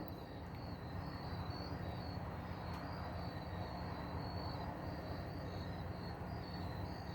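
Faint insect chirping, a high pulsing trill repeating a few times a second, over a low steady hum.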